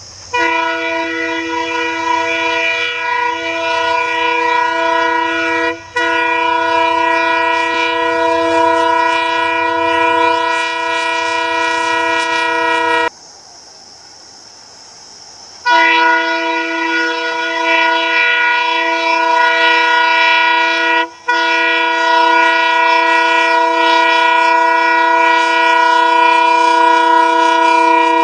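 Diesel locomotive's multi-tone horn sounding in long, steady blasts, with brief breaks about 6 and 21 seconds in and a pause of a couple of seconds around the middle.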